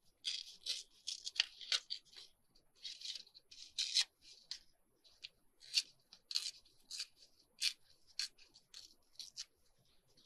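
A book page being torn by hand in many short, irregular rips, a narrow strip pulled off a little at a time.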